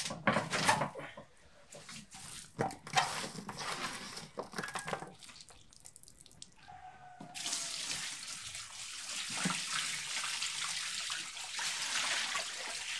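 Knocks and clatter as a large fish is handled in a wide metal basin. About halfway through, a steady stream of water starts, poured from a metal pot into the basin around the fish.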